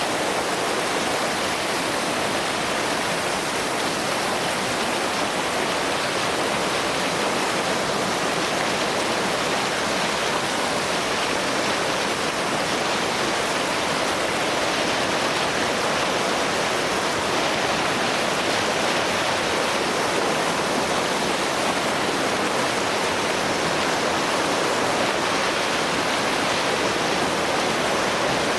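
Heavy white water of the River Nile rushing over the rapids of a waterfall, a loud, steady roar.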